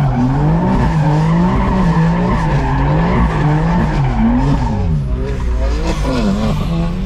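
Tuned 700 hp BMW M4's twin-turbo straight-six revving up and down in quick waves while the rear tyres squeal in a continuous drift, heard from inside the cabin. About five seconds in the squeal drops away and the revs dip and climb again.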